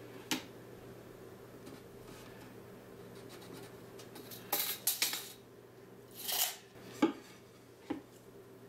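Handling noise from a tape measure and a loose wooden slat on a plywood pallet deck: a single click near the start, a quick run of clacks about halfway, a short scraping rush, then two more knocks, over a steady low hum.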